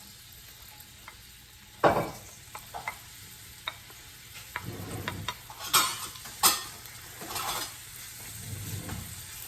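Onions sizzling in hot oil in a pan while a utensil stirs and scrapes them, with a few sharp knocks of the utensil against the pan, the loudest about two seconds in.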